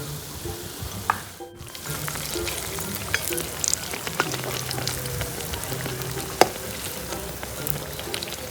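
Banana paniyaram batter deep-frying in hot oil, with steady sizzling and small crackles. The sound drops out briefly about a second and a half in.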